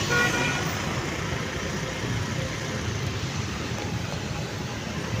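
Steady road traffic noise: vehicle engines running, with most of the sound low-pitched and no single event standing out.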